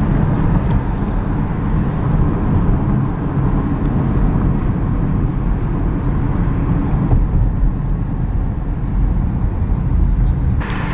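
Road and engine noise inside the cabin of a moving car: a steady low rumble.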